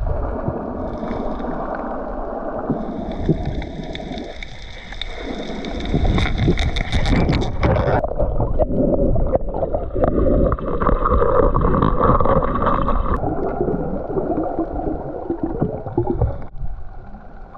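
Muffled underwater water noise with gurgling bubbles, as heard through a GoPro's housing, changing abruptly a few times.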